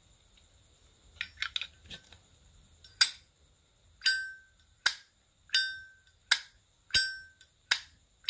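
A 2006 silver-plated Zippo lighter's lid being flipped open and snapped shut again and again: sharp metallic clicks, about eight of them from three seconds in. Every other click has a bright ring that fades away, the clear-ringing 'âm' that Zippo buyers listen for.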